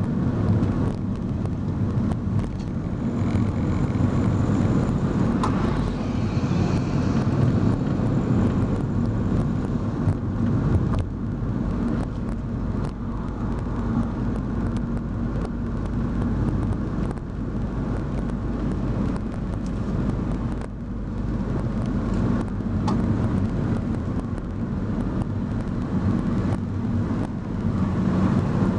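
Car engine and tyre noise heard from inside the cabin, running steadily at road speed on a winding road.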